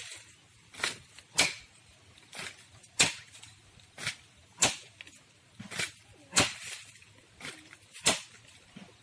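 Repeated sharp chopping blows of a hand tool biting into the trunk of an Indian date palm, about ten strikes coming roughly in pairs, a lighter blow then a harder one.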